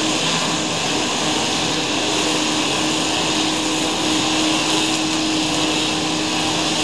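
Several engine-driven string trimmers running together at steady high speed, a continuous drone.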